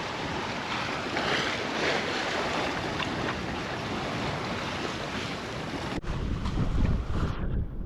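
Waves and rushing sea water around a sailboat under way, with wind. About six seconds in the sound cuts abruptly to low, gusty wind buffeting the microphone.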